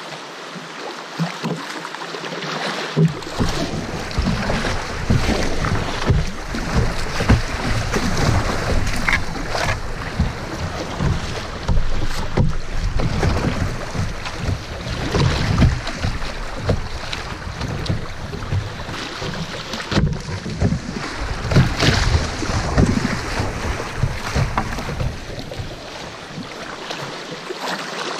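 Kayak moving through shallow riffles: water rushing and splashing around the hull, with wind buffeting the microphone in low thumps from about three seconds in.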